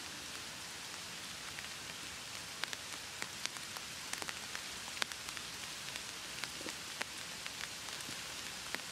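Steady rain falling, a constant hiss with irregular sharper ticks of single drops striking close by.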